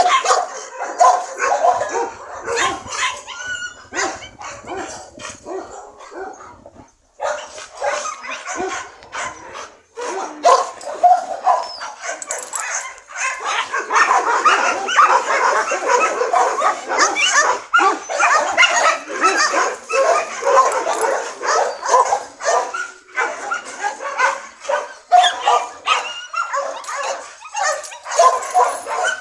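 Dogs barking, yipping and whimpering in quick, overlapping short calls, busiest in the second half.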